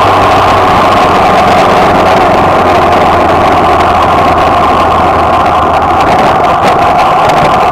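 Suzuki Bandit motorcycle's inline-four engine running steadily at freeway cruising speed. It sits under a loud, even rush of wind and road noise on the bike-mounted camera.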